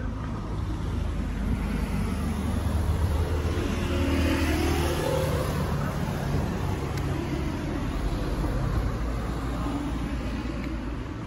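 A car passing by on a city street: engine and tyre noise builds to its loudest about four seconds in, then slowly fades, over steady traffic noise.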